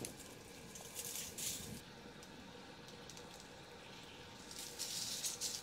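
Dry leaf litter rustling and crackling in two short spells, about a second in and again near the end, as crowned lemurs forage through it on the forest floor.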